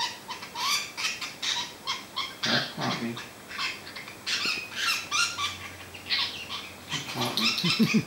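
A budgerigar's breathing squeaking with every breath: rapid, high-pitched squeaks, about three a second. It is an abnormal respiratory noise, which the vet takes as a sign of trouble down in the chest near the syrinx, possibly chlamydiosis or an enlarged thyroid (goitre).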